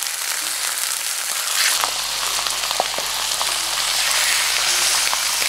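Mutton slices searing in desi ghee in a hot cast iron skillet: a steady sizzle dotted with small crackles, a little louder from just under two seconds in. The meat is browning to form a crust.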